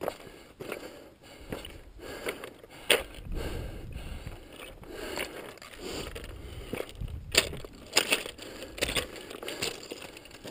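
Loose volcanic scree crunching and clattering under hands and boots during a steep scramble, with irregular sharp clicks of rock on rock.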